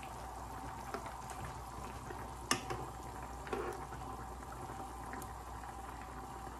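Lamb shank curry simmering in a large pan, bubbling steadily while a metal spoon stirs the broth, with one sharp click of the spoon against the pan about two and a half seconds in.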